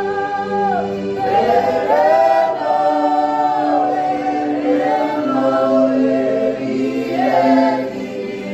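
Gospel song: voices singing in harmony, holding long notes that bend and glide, over steady sustained backing chords.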